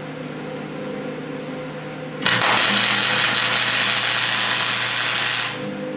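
Wire-feed MIG welder tacking steel: a steady hum, then about two seconds in the arc strikes and crackles and hisses for about three seconds before stopping. It is one tack weld joining the push-block plates.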